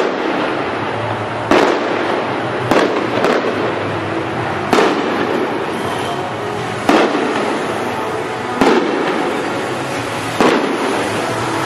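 Aerial firework shells bursting: about eight sharp bangs, one every one to two seconds, each trailing off in a short echo, over steady background noise.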